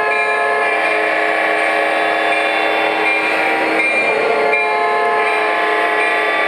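Several MTH model locomotives' electronic sound systems blowing their horns at once, a dense steady chord of overlapping horn tones over the running of the model train. The horns all sound together because the four-engine consist was set up wrong.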